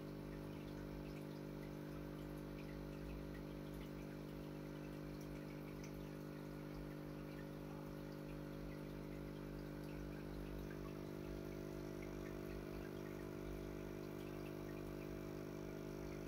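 Aquarium filter motor running: a steady hum of several low tones over a soft rumble, with faint scattered ticks.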